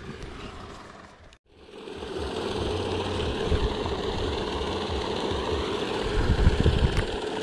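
Steady mechanical hum of a paddlewheel pond aerator's motor, with an uneven low rumble under it. It starts after a brief drop about a second and a half in.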